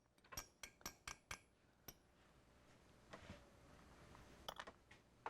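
Light metal-on-metal taps of a small hammer on a pin punch, driving out the pistol's trigger retaining pin: a quick run of about six taps in the first two seconds, then a few scattered ticks.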